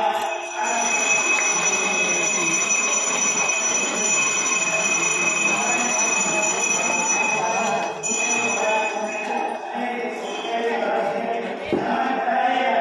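Temple bell ringing continuously over voices chanting during an abhishekam, the bell stopping about eight seconds in while the voices go on.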